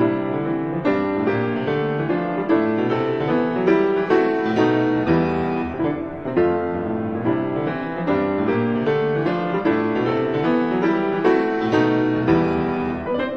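Instrumental background music: a piano melody with chords, a new note sounding several times a second.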